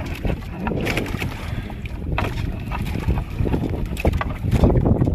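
Wind buffeting the microphone, with scattered rustles and knocks of a fishing net being hauled by hand over the side of a small wooden outrigger boat.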